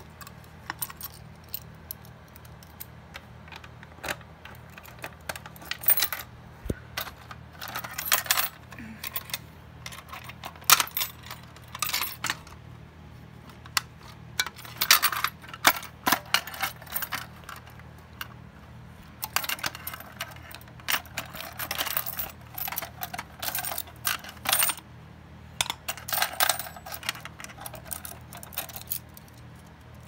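Fire alarm pull stations being handled and worked by hand: irregular clusters of sharp clicks and rattling clatter from their handles and housings.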